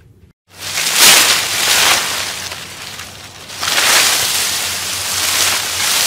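A sustained, wind-like rushing sound effect, noisy with no clear pitch, that swells in about half a second in, eases off, and swells again about two-thirds of the way through.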